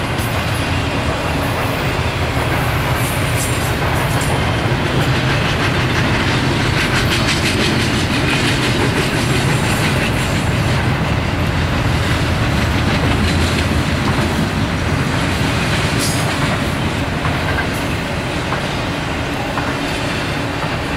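Double-stack intermodal freight train rolling past: steady, loud noise of steel wheels on the rails, with a run of quick clicks from wheels crossing rail joints in the middle.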